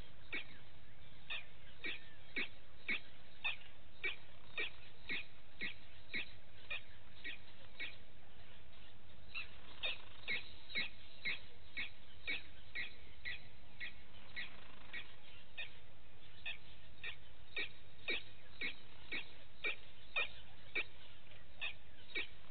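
An animal's short, high call repeated steadily, about two calls a second.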